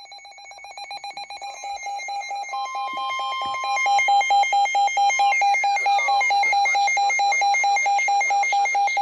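Electronic emergency alert alarm: a rapid pulsing beep, several pulses a second, that swells in volume over the first few seconds and then holds steady. A steadier higher tone runs under it for a few seconds in the middle, and the alarm cuts off suddenly near the end. It is the attention signal announcing a flash flood warning.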